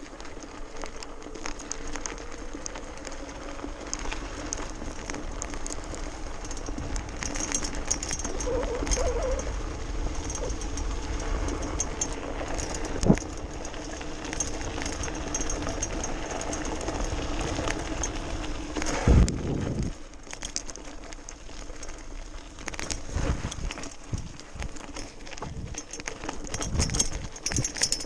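Electric BMX bike ridden fast over a gravel trail: a steady motor whine over tyre crunch and frame and chain rattle. A sharp knock comes about halfway through and a heavier thump a little later, after which the whine fades and only rattling over the rough ground is left.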